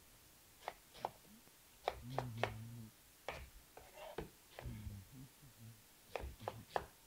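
Kitchen knife slicing a peeled onion on a plastic cutting board: about a dozen light, irregularly spaced knocks as the blade cuts through and strikes the board.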